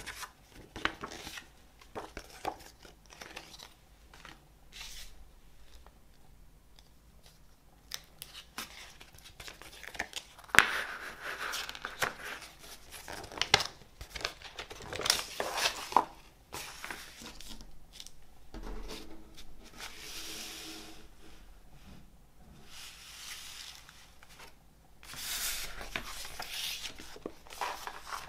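A folded glossy paper poster and a CD booklet being unfolded and handled: irregular crinkling and rustling of paper, with sharp crackles where the folds open.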